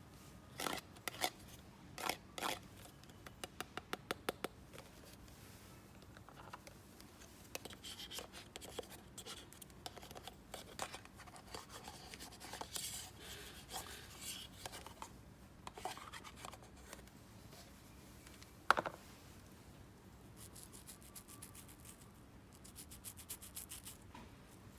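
Close-up handling of small plastic toys and their packaging: a run of quick clicks in the first few seconds, then scattered clicks with scratching and rubbing, one sharp louder click about two-thirds of the way in, and a fast fine ticking near the end.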